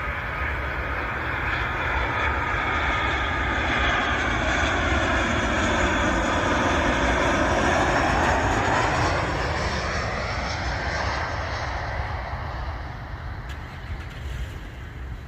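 Boeing 737-800's CFM56-7B turbofan engines passing close overhead on landing approach: a loud jet rumble with a sweeping, phasing tone that builds to a peak about halfway through and then fades as the plane moves away.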